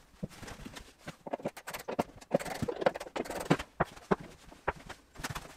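Irregular knocks and taps of wood on wood as an engineered oak worktop panel is handled and set on a wooden desk frame, with a stretch of scraping and rubbing in the middle.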